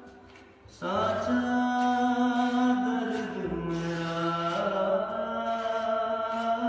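A lone singer's voice, with no instruments, sings a Hindi/Urdu song in long, drawn-out held notes that step up and down in pitch. The voice comes in about a second in, after a short pause.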